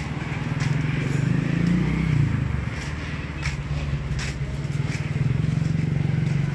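Low, steady engine rumble of a road vehicle running close by, swelling about a second or two in, with a few faint ticks over it.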